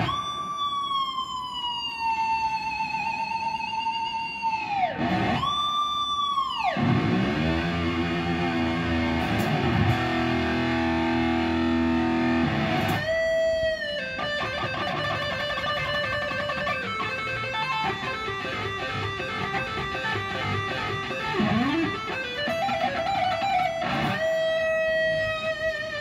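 Electric guitar lead playing: long sustained notes with vibrato and several deep pitch dives, then a long run of fast picked notes, with a swoop up in pitch near the end.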